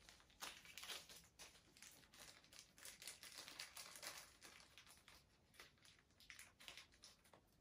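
Faint crinkling and rustling of a small plastic parts bag being opened and rummaged through for screws, in quick irregular crackles.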